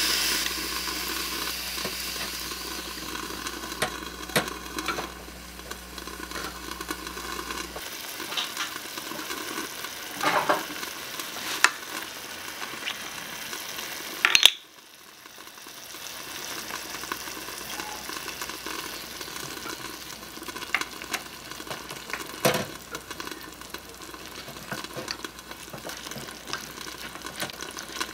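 Beef and mushroom sauce sizzling and simmering in a miniature stainless-steel saucepan over a small gas flame, loudest at first after the broth goes in, then settling to a steady hiss. A few light clicks and taps of utensils on the pan are heard, and a wooden spoon stirs near the end.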